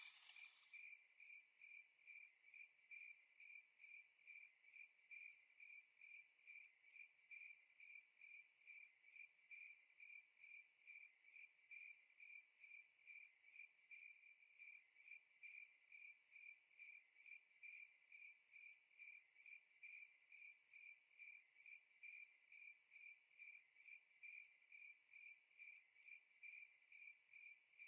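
Faint cricket chirping: one high chirp repeated steadily about two or three times a second.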